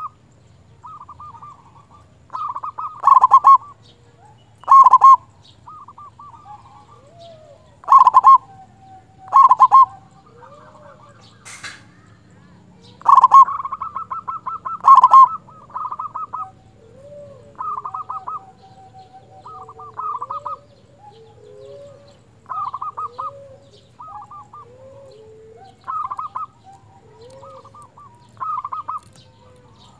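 Zebra dove (perkutut) song: bursts of rapid, rattling coos repeated about every two seconds, the loudest in the first half. Softer, lower arching notes come between the later calls.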